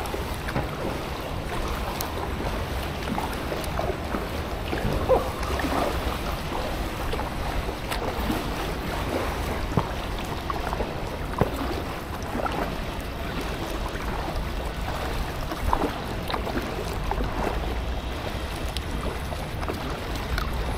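Packraft paddling: a kayak-style paddle dipping and splashing in the water, with a stream of small drips and splashes, over a steady low rumble.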